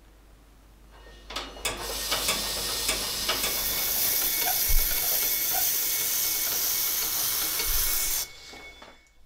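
Rusty steel knife blade held against a spinning wire wheel brush, driven by hand or pedal power rather than electricity: a steady, high scraping hiss as the wire bristles strip the rust. It begins after a few clicks about a second and a half in and cuts off suddenly near the end.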